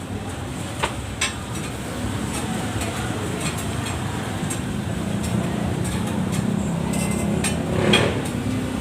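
Steady background noise with a few sharp clinks about a second in and a louder brief clatter about eight seconds in.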